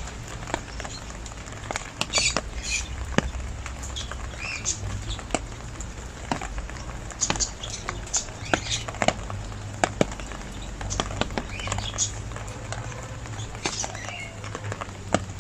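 Rain falling, with drops pattering and dripping in quick irregular ticks over a low steady hum.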